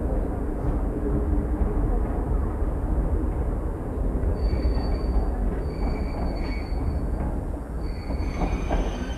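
Train rolling with a steady low rumble. From about halfway through, thin high-pitched metallic squeals come and go, typical of wheels or brakes on the rails.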